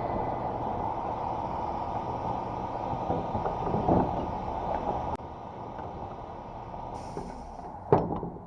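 Air die grinder with a flap disc grinding a steel lawn mower blade to a 30-degree edge, running steadily and then cutting off suddenly about five seconds in. Near the end there is a short hiss of air and a sharp knock.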